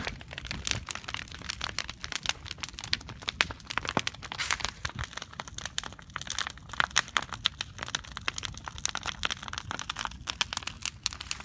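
Large wood bonfire burning, crackling with many sharp pops at irregular intervals.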